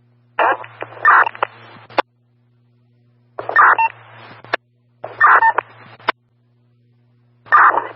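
Four short, garbled police radio transmissions on a scanner, each a second or two of squawky, narrow-band sound that ends in a sharp squelch click, with a low hum under each keyed burst.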